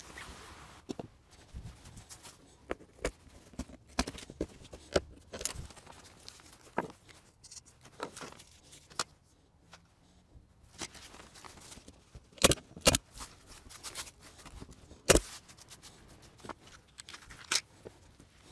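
Footsteps in dry leaves and the crinkle and rustle of a paper target being handled, a string of scattered short clicks with a few sharper knocks in the second half.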